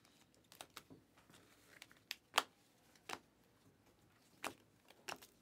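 Trading cards being thumbed through by hand: quiet, irregular flicks and slides of card on card, about half a dozen short clicks.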